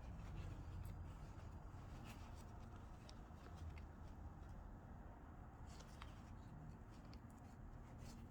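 Faint handling sounds of a zipper and fabric being worked by hand: a few light ticks and rustles over a low, steady room hum.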